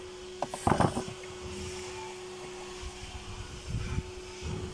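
A steady hum of a small motor, with a short clatter of knocks about a second in and a few low bumps near the end.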